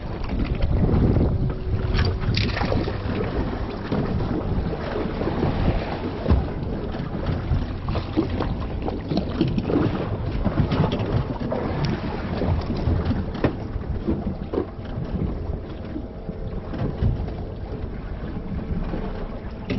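Wind buffeting the microphone on a fishing boat at sea, over a steady low engine hum, with scattered small knocks and clatter.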